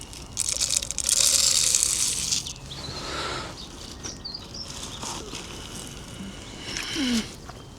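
Grain bird seed poured from a small cup into a feeder, a rushing rattle lasting about a second and a half, then a shorter pour.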